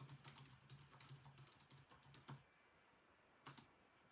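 Faint typing on a computer keyboard: a quick run of keystrokes that stops about two and a half seconds in, then a couple more clicks near the end.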